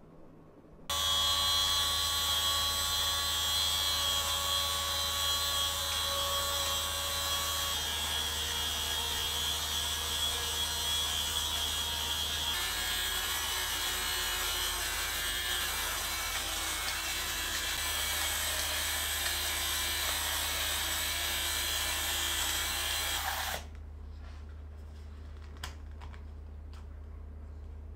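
Electric fabric shaver (lint remover) running steadily as it shaves pills off a sweater, a high whine over a hiss. It switches on about a second in and cuts off suddenly a few seconds before the end.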